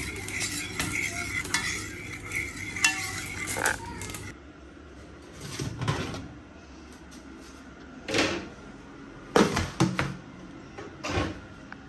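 A spoon stirring gravy, clinking quickly and repeatedly against its container. After a cut, an oven is opened and a metal roasting tray of roast potatoes is handled, giving four or five separate clanks and knocks.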